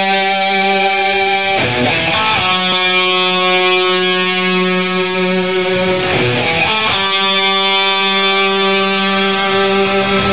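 Opening of a heavy metal song: long held electric guitar notes that change twice, with no drums yet.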